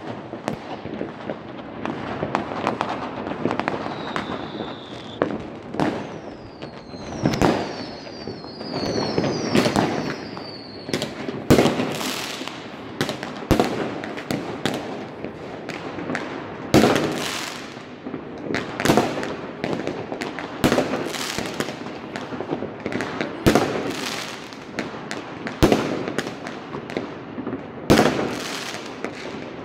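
Many fireworks and firecrackers going off at once: sharp bangs over a constant crackle. A few short falling whistles come between about 4 and 10 seconds in, then a loud bang roughly every two seconds.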